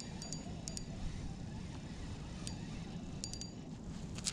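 Spinning fishing reel clicking in a few short, sparse ticks with a high metallic ring while a red drum is being played on a bent rod, over a low steady rumble of wind and water.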